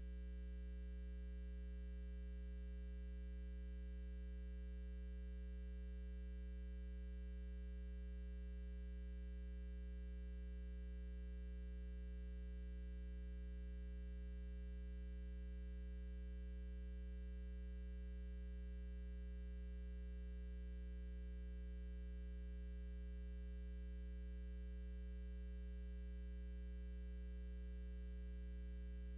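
Steady low electrical hum and nothing else: mains hum on the recording, with no arena sound to be heard.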